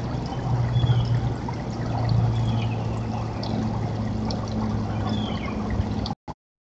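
Garden fountain trickling steadily over a low, even hum, with a few faint bird chirps. The sound cuts off abruptly about six seconds in.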